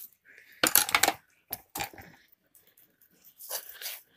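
Knife cutting into a watermelon: three crunching, tearing cuts through the rind with short pauses between them.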